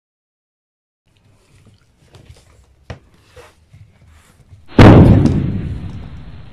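Faint scattered taps and clicks, then about three-quarters of the way in a sudden loud thud that fades away over the following second or two.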